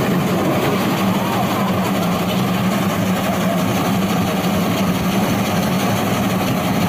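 Steam locomotive running past at speed: a loud, steady rush of exhaust and running noise, with a low drone underneath.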